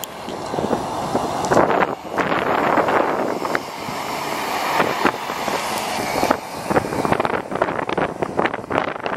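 A city bus driving past close by: engine and tyre noise, with wind buffeting the microphone.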